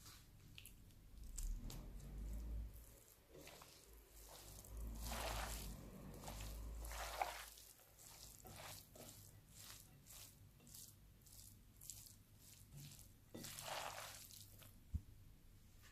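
Faint rustling and soft handling noises of thin pastilla pastry sheets being laid out and spread on a baking tray, with a low rumble for a few seconds in the first half and a sharp tick near the end.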